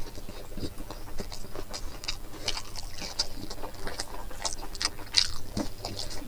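Close-up eating sounds: a man chewing braised pig-head meat and rice with his mouth open, giving an irregular run of wet smacks and clicks, several a second.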